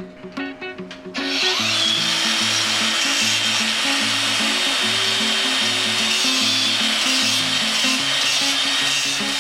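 Electric grinder working steel bar: it starts about a second in and runs steadily with a rough grinding noise and a high whine, over background music with a plucked melody and bass.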